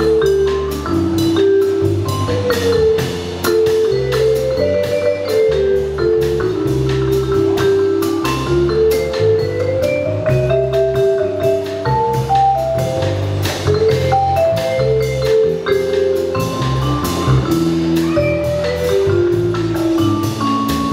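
Instrumental band music: a steady drum beat under a bass line and a melody of short notes that rises and falls.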